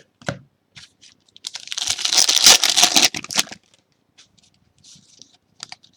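A Panini basketball card pack wrapper being torn open: one rasping tear of about two seconds, starting about a second and a half in, with a few short handling clicks around it.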